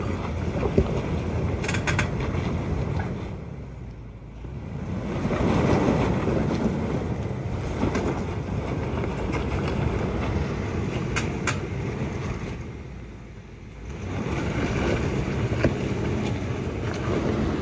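Toyota Land Cruiser's V8 engine running at low revs as the SUV crawls over loose rock, with the tyres crunching stones and a few sharp knocks of rock. The sound drops off briefly twice.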